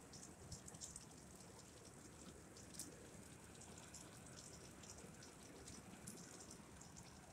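Faint steady rain falling on grass and trees, with the scattered sharp ticks of nearby drops striking surfaces close by.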